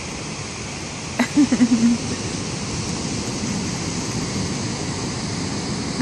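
Steady rush of ocean surf on a sandy beach, with a short click and a brief wordless voice sound about a second in.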